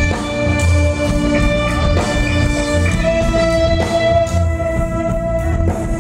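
Live rock band playing: sustained guitar notes over a steady drum beat.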